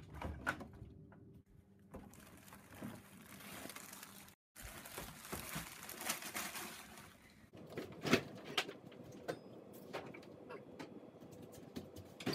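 Kitchen handling noises: plastic deli-meat bags rustling, then scattered light knocks and clicks as jars and food are picked up and set down.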